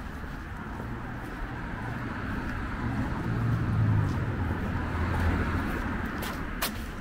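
A vehicle passing: a low rumble with road noise swells about three seconds in and fades again, followed by two sharp clicks near the end.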